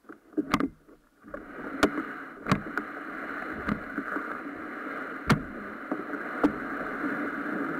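A canoe being hauled through dense marsh plants: a steady rustling as the plants brush along the hull, with sharp knocks on the hull about every second or so.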